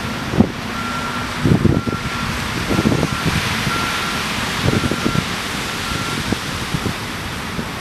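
Articulated dump truck reversing, its backup alarm beeping about once a second and stopping about six seconds in, over the low running of its diesel engine. Wind buffets the microphone, with a few low thumps.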